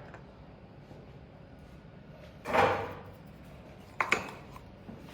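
Handling noises on a booster pump being worked on: a short scraping noise about two and a half seconds in, then a sharp click about four seconds in.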